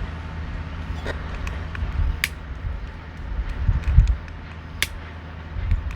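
A few sharp, separate pops over a low, uneven rumble: a Coleman 242B lantern's generator sputtering fuel now and then during a dry run, its fuel flow not yet steady.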